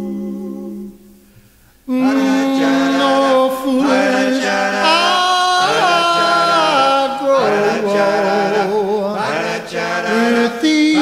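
Four-man a cappella doo-wop group singing in close harmony. A held chord dies away in the first second, there is a brief pause, and about two seconds in the voices come back in, moving through shifting harmony lines.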